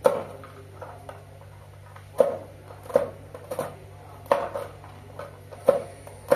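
Kitchen knife chopping walnuts on a plastic cutting board: about seven sharp, irregular knocks of the blade striking the board, with a low steady hum underneath.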